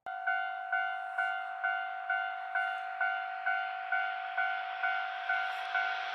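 Japanese railway level-crossing warning bell ringing: an electronic chime struck evenly about twice a second, signalling that a train is approaching.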